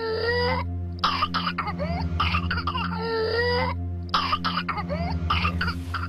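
Whooping cough (pertussis) fit: runs of short, rapid coughs alternate with a pitched, drawn-in whooping breath. The pattern repeats about every three seconds.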